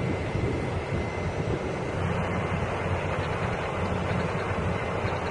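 Taiwan Railways E200-class electric locomotive moving slowly through the station, a steady low rumble with hiss above it.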